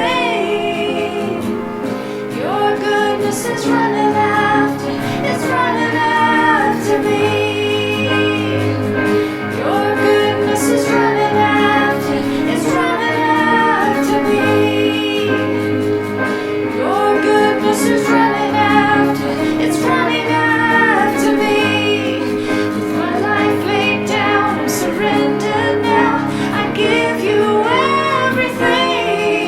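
Worship song: a woman's lead voice singing over instrumental accompaniment.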